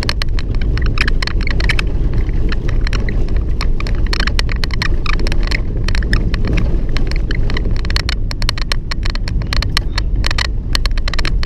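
Vehicle on the move: a steady low road-and-engine rumble, overlaid by a dense, continuous stream of squeaks and rattles from a door.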